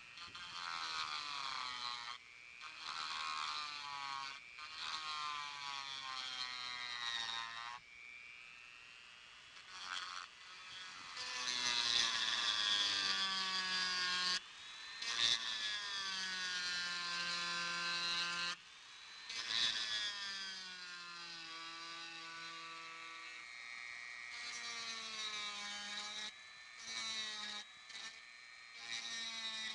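Dremel rotary tool with a small burr bit grinding hairline cracks out of fiberglass gel coat. Its motor whine slides down and back up in pitch over and over, in a series of passes with brief breaks between them, and is loudest about halfway through.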